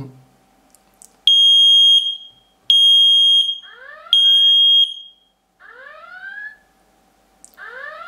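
Smoke detector's piezo horn, set off by its test button, sounding three loud high-pitched beeps of under a second each, about a second and a half apart. They are followed by a run of rising, sweeping alert tones from the computer: the home automation system's alarm signal for the received smoke alert.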